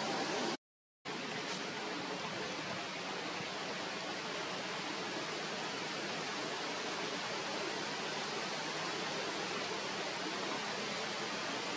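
Steady, even background hiss with no distinct sounds in it, cut off completely for about half a second near the start.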